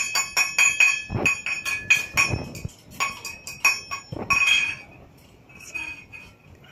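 Metal clanging from a wooden stick banging on a wire dog crate and the stainless-steel bowl inside it: irregular strikes, several a second, each ringing. A few duller thuds come in among them, and the banging dies away about five seconds in.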